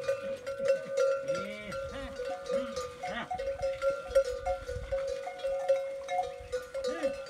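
Metal bells on a herd of camels clanking and ringing continuously as the animals jostle at a water trough, with short low calls from the camels.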